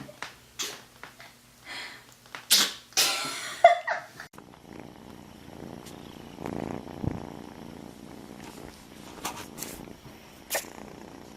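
A domestic cat sneezing several times in short, sharp bursts, the two loudest about three seconds in, then purring steadily.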